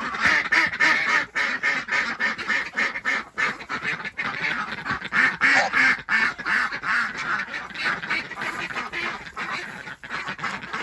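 A flock of domestic ducks quacking, many calls overlapping in a rapid, continuous chatter.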